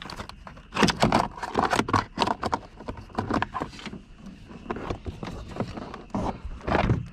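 Irregular clicks, knocks and rattles of car door parts being handled and fitted during reassembly, a few of them louder.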